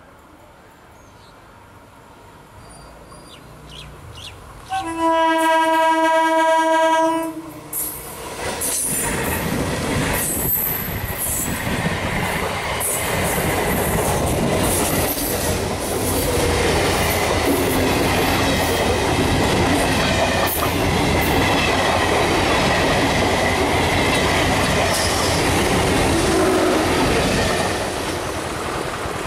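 MEMU electric multiple-unit train approaching and sounding one steady horn blast of about two and a half seconds, starting about five seconds in. It then passes close by with a continuous rumble and the clickety-clack of wheels over rail joints. The sound drops abruptly near the end.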